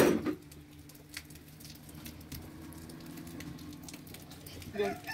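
A plastic jug set down on a concrete floor with a thud at the start, then faint scattered clicks and light crackling from a small wood fire burning under a kettle.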